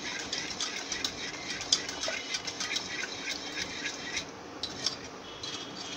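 A dal beater clicking and scraping against the inside of a pressure cooker pot as boiled lentils are mashed, in quick irregular taps with wet stirring between them. The taps thin out for about a second a little after four seconds in.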